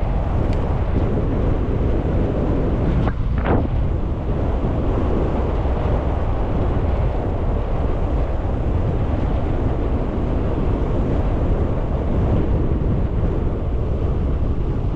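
Steady wind noise buffeting the microphone while riding a bicycle, with one short sharp sound about three seconds in.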